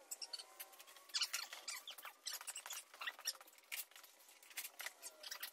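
Light, irregular clicking and clinking of hand tools and small metal parts being handled in a truck's engine bay.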